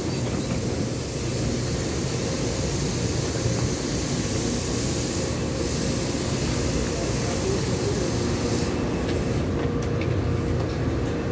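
Stationary C301 metro train idling at the platform with its doors open: a steady hum and a high hiss, the hiss cutting off about nine seconds in.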